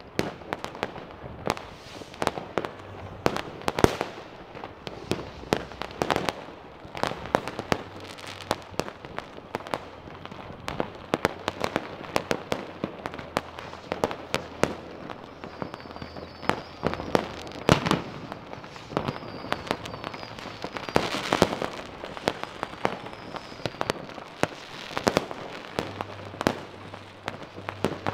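New Year's Eve fireworks and firecrackers going off: a continuous run of bangs and pops at uneven intervals, some much louder than others.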